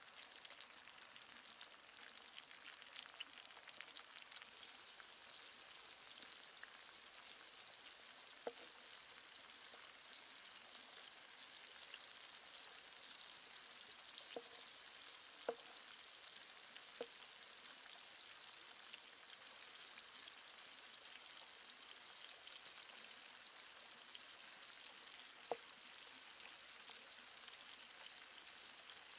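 Cauliflower florets and red bell pepper sizzling in oil in a clay pan: a faint, steady frying hiss, with a few sharp clicks around the middle and one more near the end.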